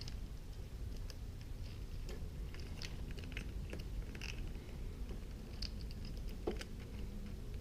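Light, scattered clicks and taps of a plastic body panel being handled and pressed into place on a motorcycle frame, with a sharper click about six and a half seconds in, over a steady low hum.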